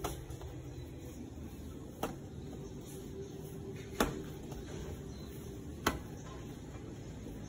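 Pizza dough slapped down onto a floured wooden board by hand as it is stretched, four sharp slaps about two seconds apart, over a low steady background hum.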